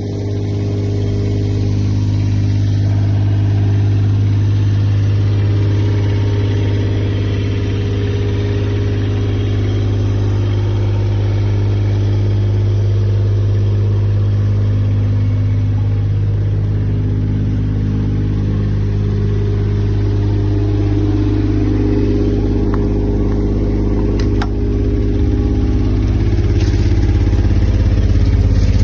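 JCB mini excavator's diesel engine running steadily, with a few sharp clicks about 23 to 27 seconds in and the engine growing a little louder after that.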